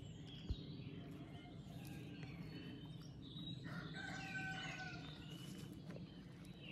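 A rooster crows once, a sustained call about four seconds in, over scattered birdsong. A short sharp click sounds about half a second in.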